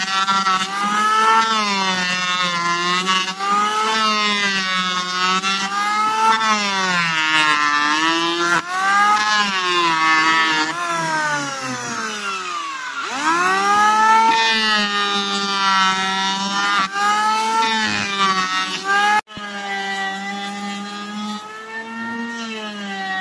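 Electric hand planer's motor whining as it shaves a wooden board, its pitch sagging each time the blades bite and rising again as the load eases. About halfway through the motor winds down and spins back up. Near the end there is a sudden break, after which the whine carries on a little quieter.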